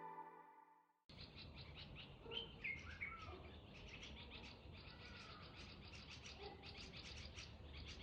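Faint outdoor ambience with birds chirping repeatedly, starting about a second in after the tail of background music fades out.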